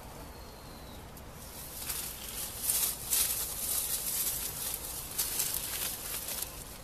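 Leaves rustling in uneven hissing bursts, starting about two seconds in.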